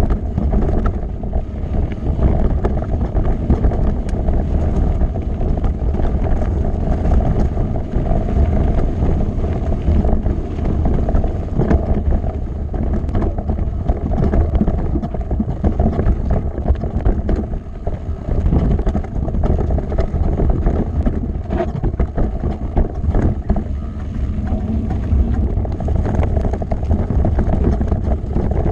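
Mountain bike riding fast down a rocky, gravelly trail: tyres crunching over stones and the bike rattling with constant small knocks, under steady wind buffeting the action-camera microphone.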